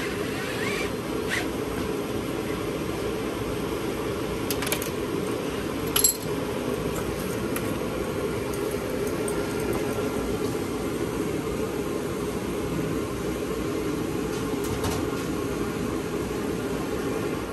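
Steady machine hum with a few light clicks and a sharper knock about six seconds in.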